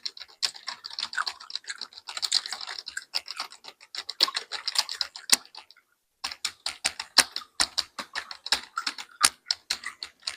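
Computer keyboard typed on quickly and close up, a rapid clatter of keystrokes. It stops briefly about six seconds in, then resumes with sharper, louder key hits.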